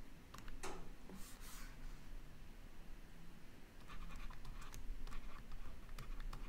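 Faint scratching and tapping of a stylus on a tablet screen as words are handwritten, mostly a cluster of short strokes and ticks from about four seconds in.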